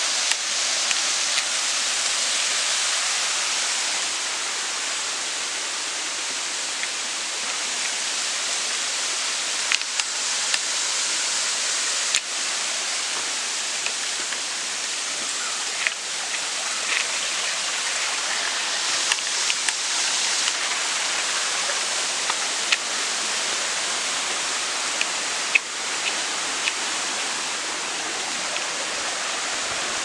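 Steady rush of falling water from a waterfall and its rocky stream, with scattered short clicks and knocks.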